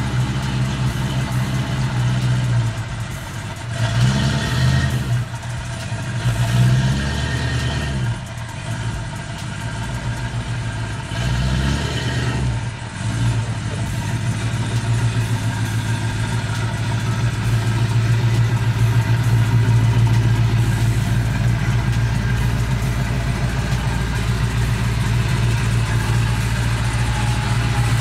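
Car engine idling, revved up and back down three times in the first half, then running steadily.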